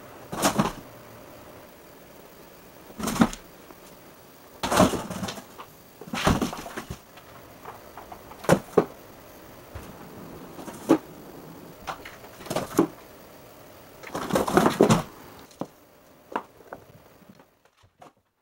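Cat moving in and against a cardboard box: about a dozen irregular scrapes and bumps of cardboard with short pauses between, fading to a few faint clicks near the end.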